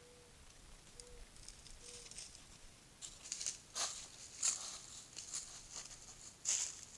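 Mule deer bucks walking through dry brush and leaf litter: irregular crackling and rustling steps that begin about three seconds in, the loudest near the middle and near the end.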